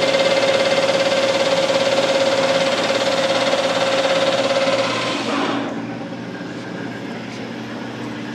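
Manual metal lathe turning a snowmobile shock shaft down to size, a steady high whine over the running machine during the cut. About five seconds in the whine stops and the sound drops to the lathe running more quietly.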